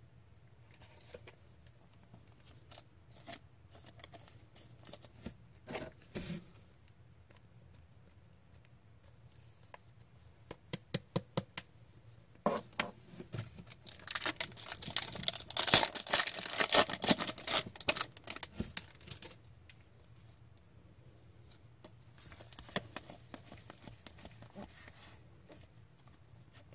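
Hockey trading cards and pack wrappers being handled: soft flicks and slides of cards, with a louder, denser stretch of crinkling and clicking in the middle.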